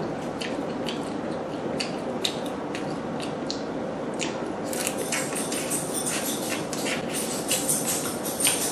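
Close-up eating sounds of lobster: wet chewing and mouth smacks with many small sharp clicks, busier from about halfway through as lobster shell pieces are handled.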